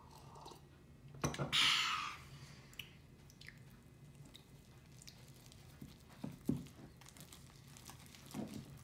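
Metal spoon stirring and mashing sticky melted-marshmallow slime in a bowl, with soft scattered clicks, squelches and a few knocks against the bowl. About a second in there is a knock, then a short, loud breathy rush of noise.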